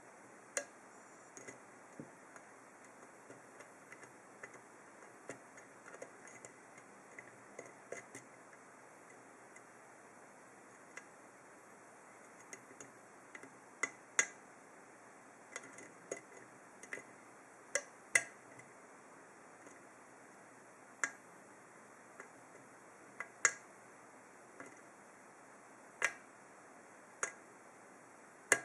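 Irregular small metallic clicks and ticks of a hook pick working the pin stack of an ASSA 7-pin oval lock cylinder under tension from a tension wrench. The clicks come at uneven intervals, a few much sharper than the rest, more often in the second half.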